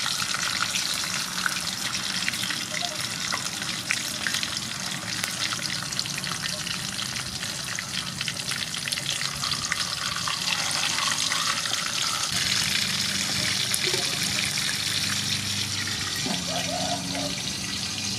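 Whole sea fish frying in hot soybean oil in an aluminium wok: a steady, dense sizzle with many small crackles and pops.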